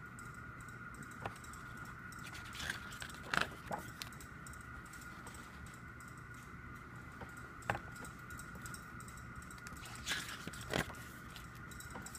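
Pages of a glossy photobook being handled and turned: short paper rustles and taps, several seconds apart, the loudest about three and a half seconds in. A steady faint high whine runs underneath.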